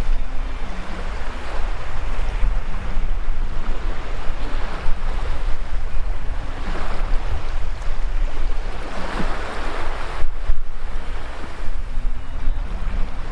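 Shallow sea waves washing up over wet sand at the water's edge, the wash swelling and ebbing, loudest about two-thirds of the way in. A low rumble of wind buffets the microphone underneath.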